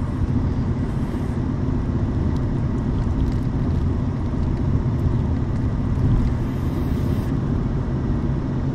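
Steady road and engine noise inside the cabin of a moving car.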